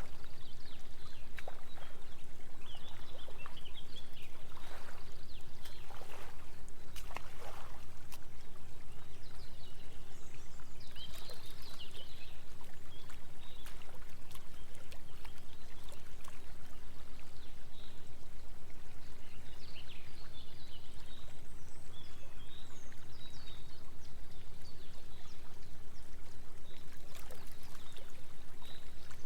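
Small waterfall trickling and pouring into a pond, with occasional brighter splashes. Under it, a steady low hum of binaural-beat tones runs throughout.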